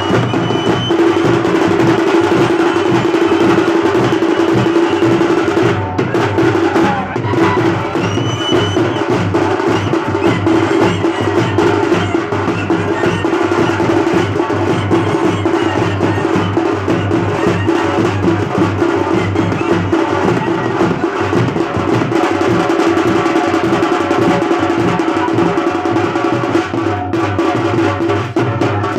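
Street band music: a large bass drum and smaller drums beating a fast, dense rhythm under a clarinet playing a melody.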